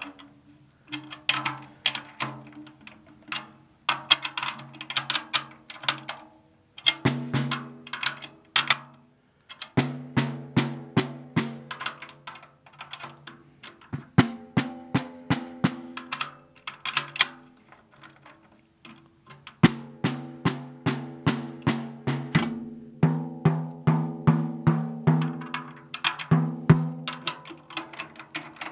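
Sonor Signature 14x8 Lite Birch snare drum with an Evans HD Dry head, struck in runs of quick hits with short pauses while being tuned up. The drum's ringing pitch shifts between runs as the head is tightened.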